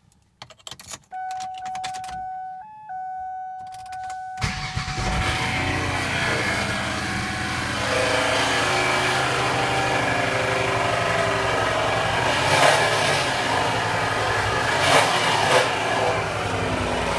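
Key clicks, then a steady electronic warning chime tone. The 2001 Ford Taurus SES's 3.0 L Vulcan V6 starts about four seconds in and runs, with a knock that the owner locates in the oil pan area.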